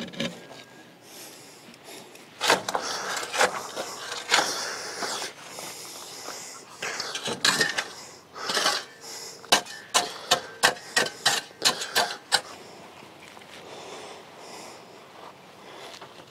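Shovel scraping and chopping into dirt to lower the legs of a rabbit hutch until it sits level. It comes in two spells, the second ending in a run of quick strikes, about two a second.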